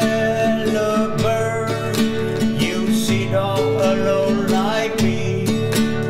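Acoustic guitar music in a country style, with held low notes under a sliding melody line.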